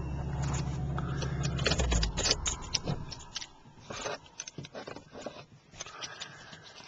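Vehicle engine running under a rattling ride, then stopping about two seconds in, followed by scattered light clicks and rattles.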